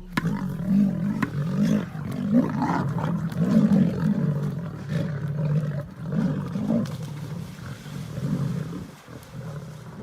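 Lions growling and snarling, a run of deep, rasping calls that rise and fall one after another.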